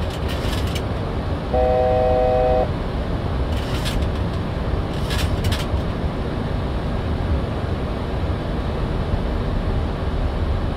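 Steady rush of air and equipment noise on the Boeing 737-800 flight deck in flight. About a second and a half in, a steady electronic alert tone sounds for about a second, and a few faint clicks follow.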